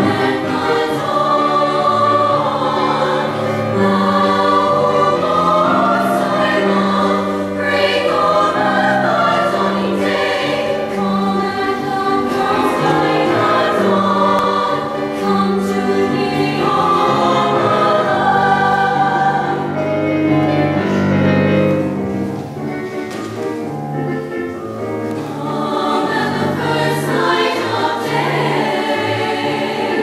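A girls' school choir singing a seasonal concert piece together, with the notes changing every second or so.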